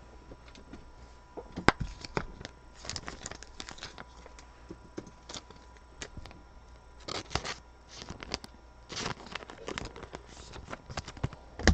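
Trading cards being handled and sorted by hand: irregular light scrapes, clicks and crinkles of card stock and plastic, with a few denser rustling clusters.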